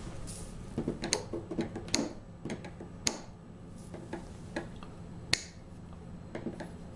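A small metal hand tool clicking and ticking against the little nails that hold an accordion's bellows as they are worked loose and pulled out. The clicks are irregular and sharp, with the loudest about five seconds in.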